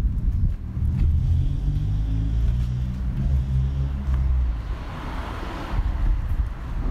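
A motor running with a low, steady hum, then a short burst of hiss about five seconds in.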